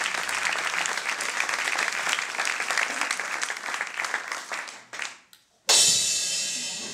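Audience applause dying away to a brief hush, then a sudden loud crash on a drum kit's cymbal near the end, ringing on and slowly fading.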